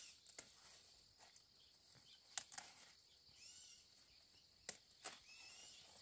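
Faint rural ambience: a steady high insect drone, a few short arching bird calls, and several sharp clicks or snaps.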